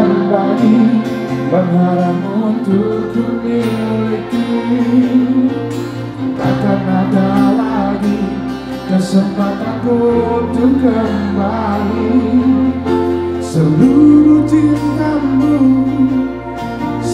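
Live pop band music from a stage sound system, with sustained chords over a bass line and some singing.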